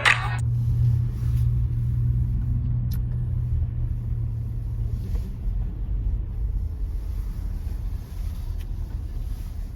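Car driving: a steady low rumble of engine and road noise inside the cabin, with a few faint clicks.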